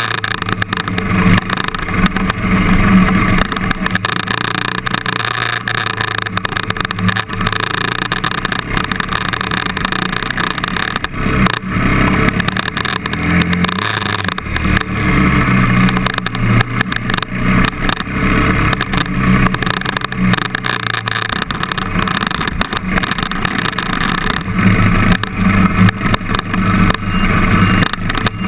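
KTM trail bike engine running on a dirt forest track, heard on board, its revs rising and falling as the throttle is opened and closed.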